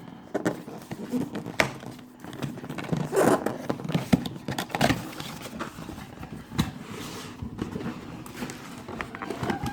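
A cardboard box and its packaging being handled and opened by hand: irregular scrapes, rustles and knocks, with a longer scraping stretch about three seconds in.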